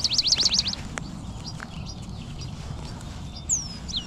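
A songbird singing a quick trilled phrase at the start, then short high whistles falling in pitch near the end, with a single click about a second in over a low steady background rumble.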